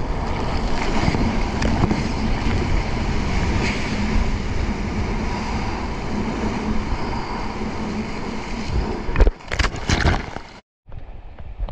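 Water rushing and splashing around a surfboard moving through the sea, with wind on the microphone. Near the end come several heavy splashes of water over the camera, then a sudden cut to quieter surf on the shore.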